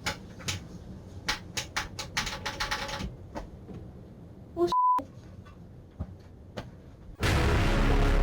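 A quick run of sharp clicks, several a second, for about three seconds, then a few scattered clicks, with a short high beep about halfway through. Music comes in near the end.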